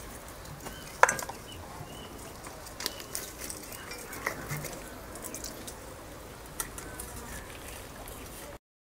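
Raw chicken being skinned by hand: wet, sticky rustling and squelching as the skin is pulled, with a sharp click about a second in and a few smaller clicks. The sound cuts off just before the end.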